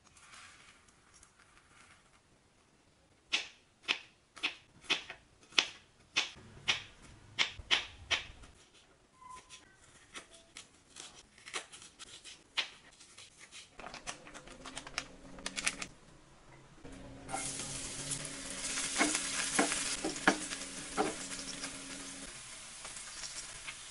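Knife chopping on a wooden cutting board: sharp taps about two a second, then lighter, more spaced cuts. About two-thirds of the way through, garlic and onion sizzle as they fry in ghee in a pan, with a few knocks as they are stirred.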